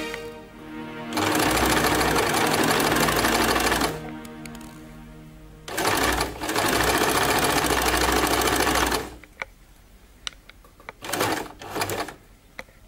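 Electric sewing machine stitching fabric in two runs of about three seconds each, stopping in between. Near the end there are only a few light clicks.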